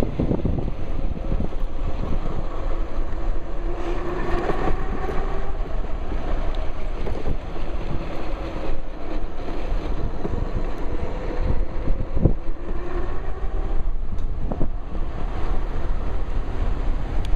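Wind noise buffeting the microphone of a pocket camera while riding an electric bike, a steady low rush over road noise. A faint whine rises and fades twice in the middle, and there is one short knock about three quarters of the way through.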